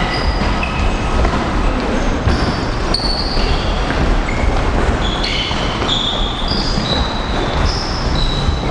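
Boxing shoes squeaking briefly and repeatedly on the ring canvas during sparring footwork, over a steady low rumble.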